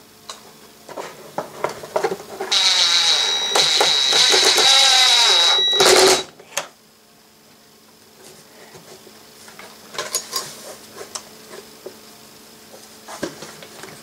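A small electric power driver runs for about three seconds, its pitch wavering as it drives a fastener on a homemade bus-bar panel, and ends with a sharp knock. Scattered lighter knocks and clicks follow as the panel parts are handled.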